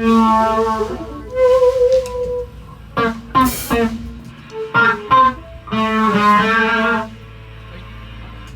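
Electric guitar played as loose phrases: a few chords and short runs struck and left to ring, with pauses between them and a low steady hum underneath.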